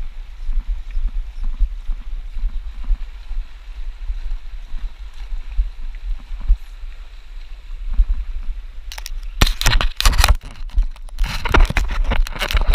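Wind buffeting an action camera's microphone on a boat at sea, a steady low rumble. From about nine seconds in, loud scraping and crackling handling noise as hands and fly line rub right at the microphone.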